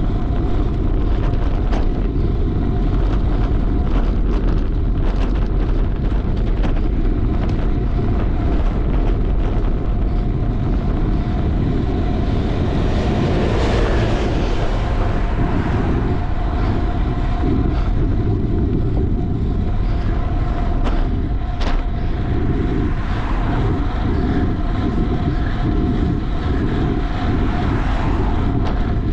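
Wind rushing over the microphone of a camera on a road bike ridden hard at race speed, with a steady faint hum from the bike. The noise swells louder about halfway through, and there is one sharp click later on.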